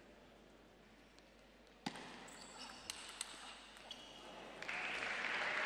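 Table tennis rally: a sharp ball strike about two seconds in, then a few quick clicks of the ball on bat and table with short squeaks of shoes on the floor. Near the end the crowd breaks into applause as the point is won.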